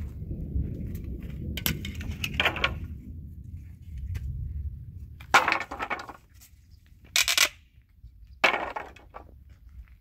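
Loose wooden boards knocking and clattering as they are handled, in three sharp bursts in the second half, after a low rumble in the first half.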